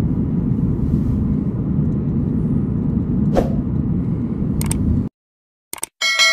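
Steady low rumble of a car driving that cuts off abruptly about five seconds in. A couple of sharp mouse-click sound effects follow, then a bright bell ding that rings on.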